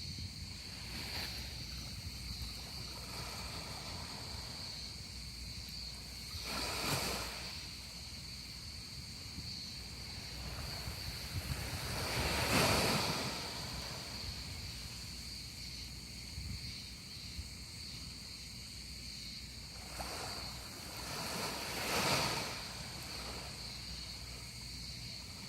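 Typhoon storm noise: a steady rush that swells three times into longer surges of rushing air or surf, the loudest near the middle, over a faint steady high-pitched tone.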